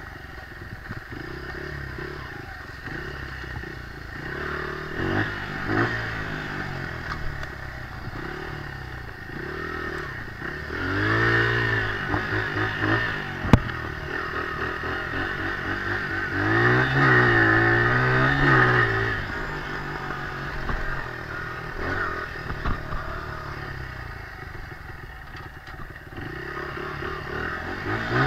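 Dirt bike engine running at trail pace, its pitch rising and falling as the throttle is opened and closed, with two stronger revs, one before and one after the middle. Clattering from the bike over the bumps, and one sharp knock near the middle.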